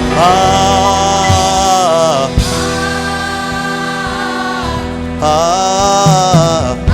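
Gospel choir singing worship in three long held phrases over a steady sustained instrumental backing.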